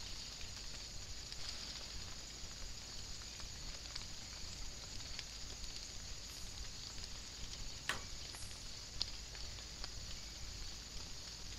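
Light rain pattering on woodland leaves: a steady hiss with scattered small ticks, and one sharper click about eight seconds in.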